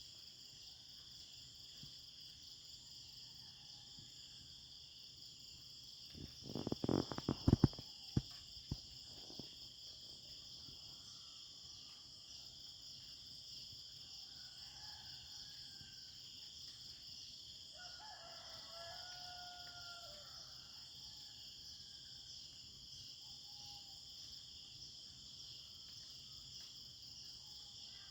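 Steady high chirring of crickets and other insects, with a few faint bird calls. A rooster crows once, a little past the middle. About a quarter of the way in, a quick cluster of loud, sharp knocks or clicks is the loudest thing heard.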